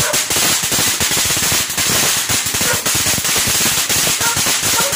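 Fireworks crackling: a dense, rapid, unbroken string of small cracks and pops.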